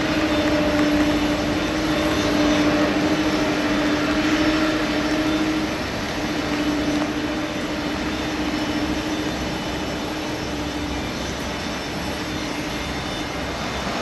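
Boeing 747-400 jet engines at taxi power: a steady rushing noise with a low steady hum that fades out about eleven seconds in.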